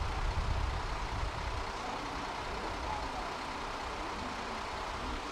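Diesel railcar running, heard from inside the passenger car: a steady low rumble of engine and running gear, strongest in the first second or so and easing after that.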